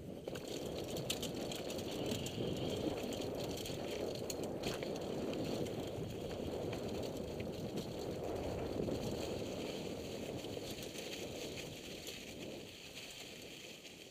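Mountain bike riding downhill over a rocky trail covered in dry fallen leaves: tyres crunching over leaves and rock, with rattling and clicking from the bike. It gets quieter near the end as the bike rolls out onto grass.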